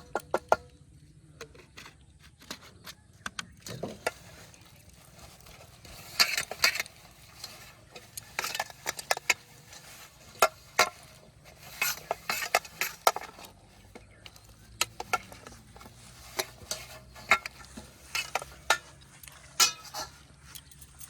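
Flour-dough fishing bait being stirred and mixed in a bowl: irregular scraping and clinking against the container, in quick clusters with short pauses.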